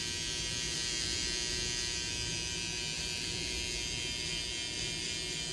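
Cordless T-blade hair trimmer running steadily against the hair, a continuous even hum. It is cutting close to the skin to blend away the line at the edge of a skin fade.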